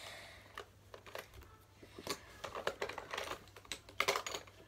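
Makeup brushes and cosmetics clicking and rattling against each other inside a makeup bag as a hand rummages through it. The clicks come irregularly and are busiest about four seconds in.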